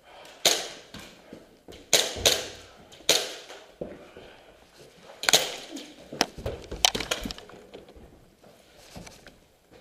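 Airsoft guns firing single shots in a stairwell: about seven sharp cracks at irregular spacing over the first seven seconds, each with a short echo, then a few fainter clicks.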